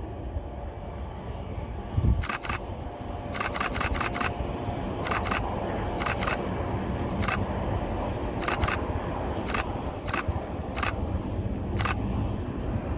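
A series of sharp clicks, some in quick pairs and one fast run of about five, over a steady low rumble.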